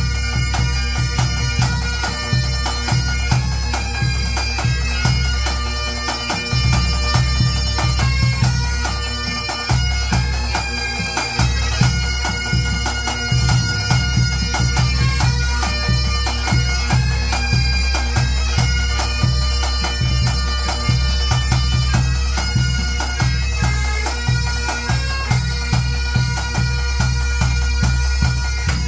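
Pipe band playing: Great Highland bagpipes carry a tune over their steady drones, while snare, tenor and bass drums beat a dense, driving rhythm underneath.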